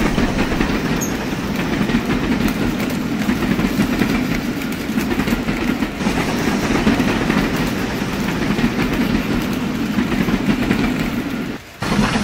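HO scale model diesel freight train rolling along Bachmann E-Z Track: a steady rumble of the locomotive's motor and the rolling wheels, with fast, continuous clicking as the wheels cross the rail joints. The sound drops out briefly near the end.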